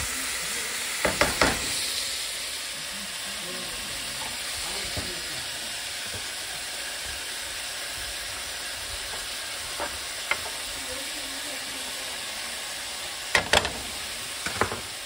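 Meat and vegetables sizzling in a frying pan while being stirred with a spatula. A steady sizzle runs under a few sharp clicks of the spatula against the pan: three about a second in, two around the middle and a few more near the end.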